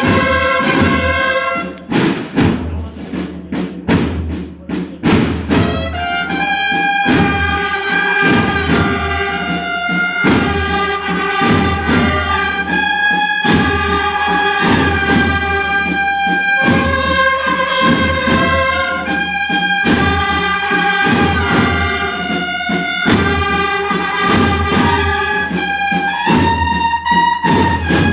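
Marching band of trumpets and drums playing a processional march. A held brass chord ends about a second and a half in, the drums beat on their own for a few seconds, and then the trumpets come back in with a slow, held melody over the drum beat.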